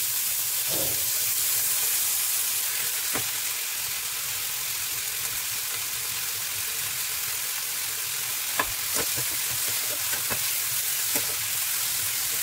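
Onions, tomatoes and dried red chillies sizzling steadily in hot oil in a nonstick pan while they are sautéed until soft. A metal spatula stirs them, scraping and tapping against the pan, and the taps come more often in the last few seconds.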